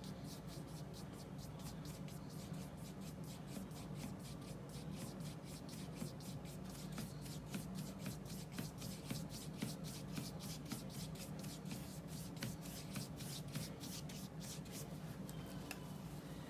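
Paintbrush rubbing oil paint across gessoed paper in quick, repeated short strokes, several a second, wisping out the paint.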